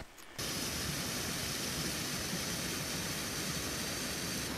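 Steady rush of wind, an even hiss, that starts abruptly about half a second in.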